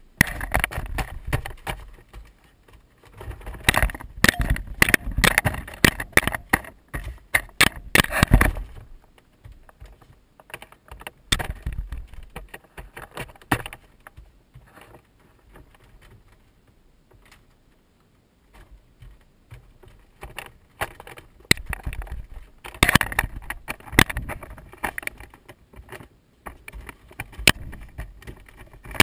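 Kittens batting and pawing at a GoPro camera: quick knocks, taps and scrapes of paws against the camera housing. They come in busy flurries over the first eight seconds and again a little after twenty seconds, with sparse taps between.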